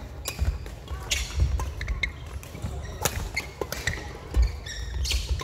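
Badminton rally: rackets sharply striking the shuttlecock, with shoes squeaking and feet thudding on a wooden court floor.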